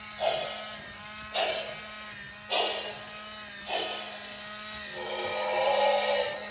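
Electronic sound effects from a Goldlok light-and-sound walking Iron Giant toy: a sharp sound that falls in pitch, repeating about once a second over a steady low motor hum. Near the end it gives way to a longer, wavering sound.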